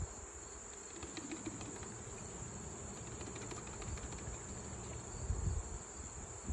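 Steady high-pitched drone of insects, with a few low thumps about five seconds in.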